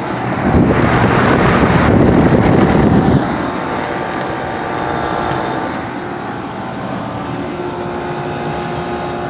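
2006 Rheem Classic 3.5-ton central air conditioner condenser running well: the condenser fan's steady rush of air over a steady compressor hum. The rush of air is louder for the first three seconds or so.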